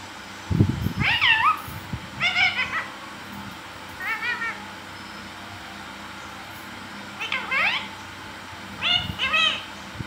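Indian ringneck parakeet giving a series of short, wavering calls, five bursts one to two seconds apart, with pitch bending up and down. A low thump comes about half a second in.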